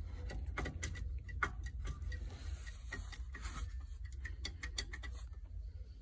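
Water pump pulley on a 2011 Jeep Grand Cherokee's 5.7-litre Hemi being rocked by hand, giving a run of irregular clicks and knocks that stop near the end. The clicking is the sign of the pump's worn bearing: the pulley has a lot of play.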